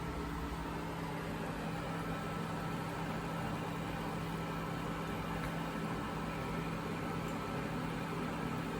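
Steady mechanical hum of a running appliance, with a few constant tones over a soft whir.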